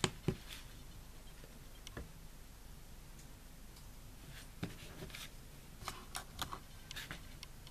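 Faint clicks and light taps: the power button of a small digital pocket scale pressed, then a small silver button set down on its metal weighing pan with a few light clinks.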